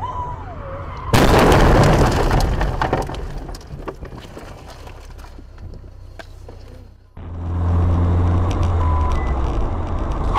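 Car crash: a sudden loud impact about a second in, followed by several seconds of fading scraping and rattling. About seven seconds in, the sound switches abruptly to the steady engine and road noise of a car driving.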